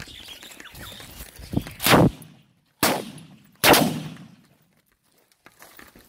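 Three gunshots about a second apart, each sharp and loud, with the sound dropping out briefly after them.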